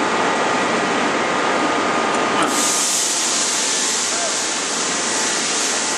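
Steady, loud machinery noise in a forging shop with no distinct blows. About two and a half seconds in, it changes abruptly to a loud high hiss.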